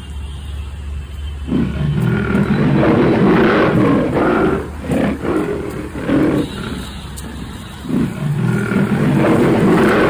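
A big cat roaring: a run of loud, rough roars starting about a second and a half in, easing off briefly past the middle and then starting up again.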